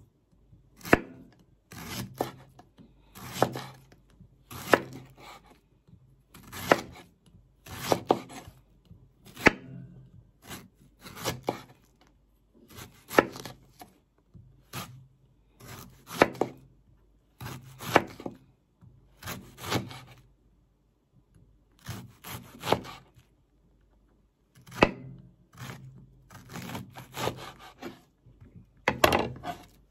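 Knife slicing a banana blossom thinly against a chopping board: a steady run of separate cuts about every second or so, with a couple of short pauses.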